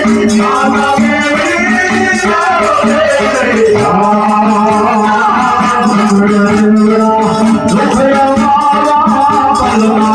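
Live folk music: a man singing into a microphone over a harmonium holding a steady drone, with rhythmic shaken or struck percussion and hand-clapping keeping the beat.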